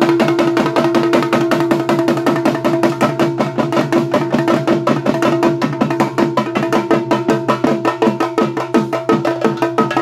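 Bhuta kola ritual drumming: drums struck in a fast, even beat, with a steady held note beneath that fades about four seconds in.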